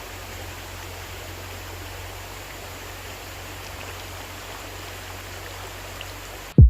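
Creek water running steadily, with a low, steady engine hum from a tractor underneath. Near the end comes one brief loud thump, and then the sound cuts off abruptly.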